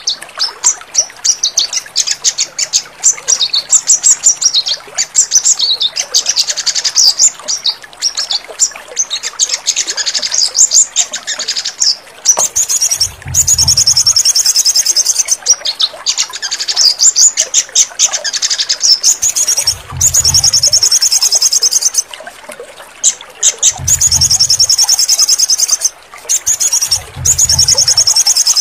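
Crimson sunbird (sogon) song, of the kind played to caged birds to coax them into singing. It starts as a quick stream of high chirps, then from about halfway it turns into fast, high trills in bursts of a second or two with short breaks. A low hum sounds under several of the trill bursts.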